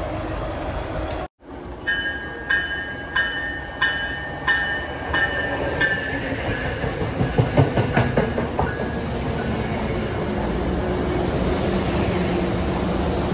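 MBTA commuter rail train with bilevel coaches running past close by. After a brief gap in the sound about a second in, a bell rings about every two-thirds of a second for some four seconds. Then the wheels click over the rail joints as the coaches go by, settling into a steady rolling rumble.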